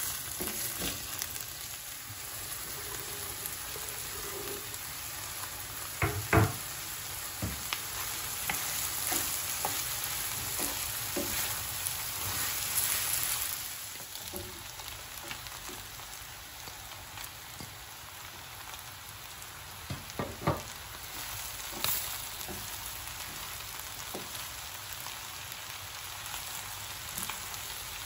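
Diced beef and onions sizzling in oil and butter in a frying pan, with a steady hiss. A wooden spoon stirs through the pan and knocks against it a few times, most sharply about 6 and 20 seconds in.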